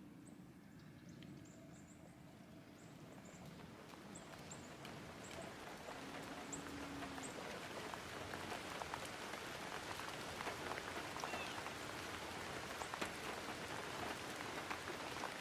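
Rain falling steadily, with separate drops striking close by, growing gradually louder.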